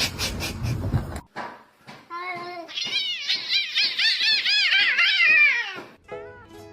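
A cat mewing rapidly over and over: a quick string of short, high calls, each rising and falling in pitch, about three or four a second, growing louder toward the end before stopping.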